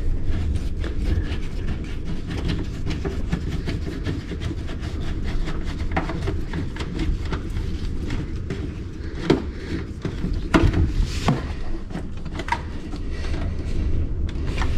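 Hand screwdriver driving the mounting screws of a reinstalled dash gauge cluster: light clicks and scrapes, with a few sharper knocks about six seconds in and again between nine and thirteen seconds, over a steady low rumble.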